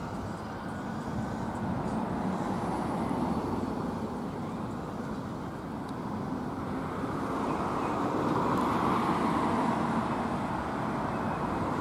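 Steady road traffic: cars and vans driving along a main road, growing a little louder near the end.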